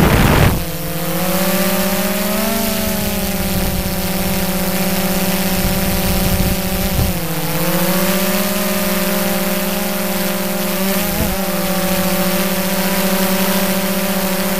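Steady low drone with overtones, wavering slightly in pitch now and then, picked up aboard a mini rocket as it comes down over the field. A loud rush of wind cuts off about half a second in.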